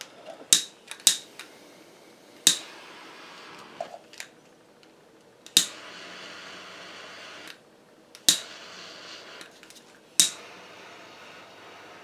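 A small handheld butane torch being worked: sharp igniter clicks about six times, several of them followed by a second or two of steady gas hiss that cuts off abruptly, used for heating black plastic to patch holes in a plastic air box.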